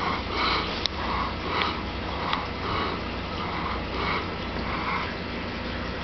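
Aquarium air stones bubbling: a soft rushing that swells about twice a second over a steady low hum, with a few faint ticks.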